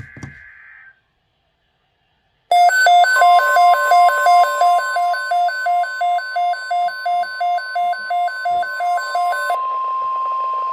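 NOAA Weather Radio flood-watch alert. The tail of a SAME data burst ends about a second in. After a short silence, a loud electronic alarm starts beeping, pulsing about three times a second, over the steady 1050 Hz warning alarm tone, which carries on after the beeping stops.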